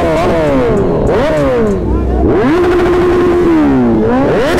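A pack of sport motorcycles revving together as they pull away, several engines rising and falling in pitch over one another. About halfway through, one engine holds a steady high rev for about a second, then drops and climbs again.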